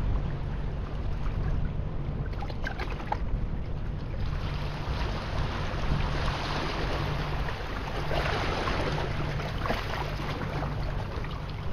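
Small sea waves washing in over shoreline rocks, swelling in surges from about four seconds in, over a steady low rumble.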